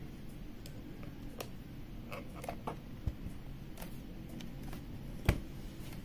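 Scattered, unhurried key presses on a Xiaomi Mi Pad 5 tablet keyboard cover: short soft clicks a few at a time, not continuous typing. About five seconds in comes one much louder, deeper thump.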